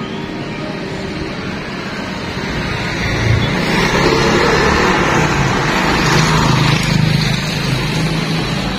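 A road vehicle passing by over steady street noise: its engine and tyre noise grow louder about three seconds in and fade again near the end.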